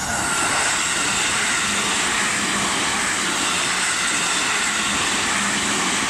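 Two coupled JR 211 series electric multiple units passing close by: a loud, steady rush of wheels on rails that holds the whole time.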